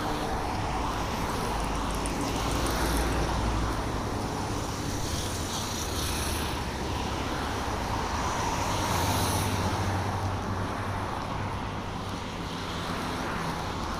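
Road traffic: a steady rush of cars driving by, swelling twice as vehicles pass.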